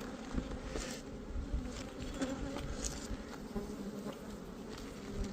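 Honeybees buzzing around an open, crowded hive during a frame inspection: a steady hum with a few faint clicks over it.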